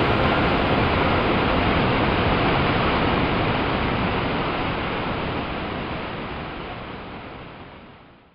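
Waterfall rushing, a steady spray of water noise that fades out gradually over the last few seconds to silence.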